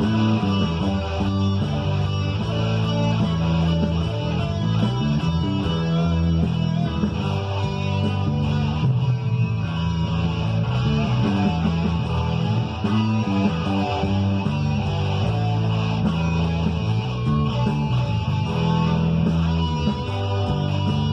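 Electric guitar played over a rock backing track with bass, the music running steadily without a break.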